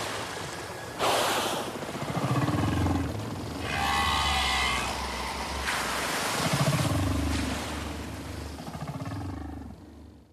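Underwater ambience: a steady rush of water noise with slow, low rumbling swells, fading out near the end.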